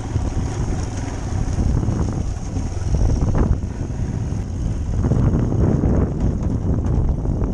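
Royal Enfield Himalayan's single-cylinder engine running as the motorcycle rides a rough dirt track, with heavy wind rumble on the helmet-mounted microphone.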